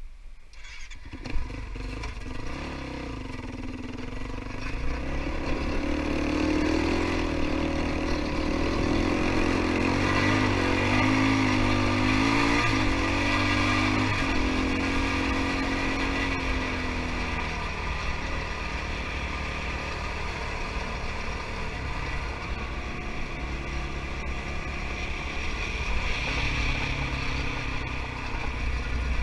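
Kawasaki KFX 450R quad's single-cylinder four-stroke engine running under way, its pitch rising and falling repeatedly as the throttle is worked, then settling steadier toward the end. A single sharp knock about a second in.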